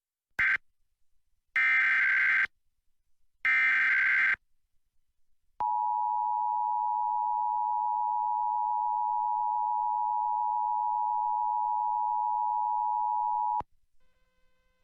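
Emergency Alert System SAME header data: three bursts of warbling digital tones, the first brief and the next two about a second each, encoding a Required Monthly Test. About a second later the EAS two-tone attention signal (853 and 960 Hz) sounds steadily for about eight seconds and cuts off suddenly.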